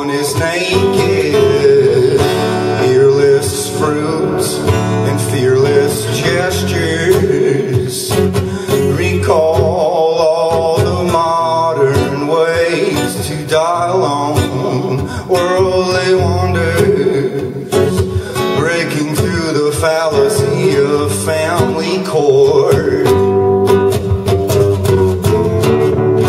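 Acoustic guitar played live, strummed steadily through a song without a break.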